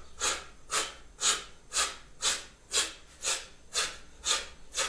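A man's short, forceful exhalations, about two a second and evenly paced, a breath pushed out from the abdomen with each quick hand strike of the exercise.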